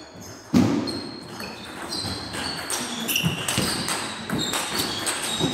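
Table tennis rally: the plastic ball clicking back and forth off the bats and the table in a quick, irregular series of sharp ticks, echoing in a large hall. A heavier thud comes about half a second in.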